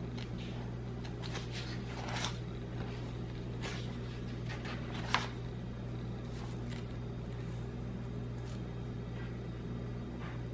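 Paper pages of a spiral-bound book being turned by hand, a few brief page rustles, over a steady low hum.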